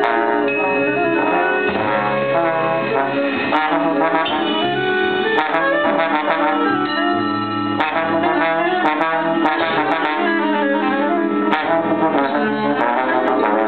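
Live jazz ensemble playing dense, overlapping horn lines, with saxophone and low brass prominent over sustained low bass notes.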